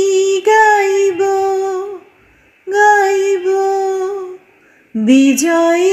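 A woman singing a Bengali song unaccompanied, holding long, slightly wavering notes in three phrases with short breaths between them.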